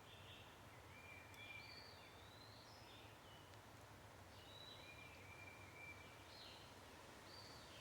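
Faint birdsong: many short chirps and whistled notes, some rising or falling, in overlapping phrases, over a steady low rumble.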